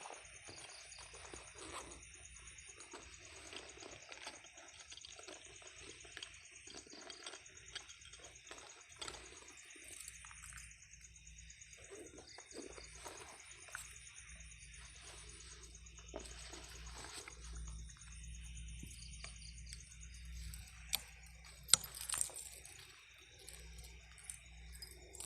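Steady high-pitched chirping of night insects, with rustling of handling and two sharp clicks about three-quarters of the way in.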